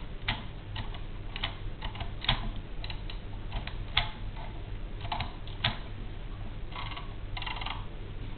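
1916 Virotype typewriter being typed on: a slow, irregular run of sharp clicks, then two longer rattles near the end.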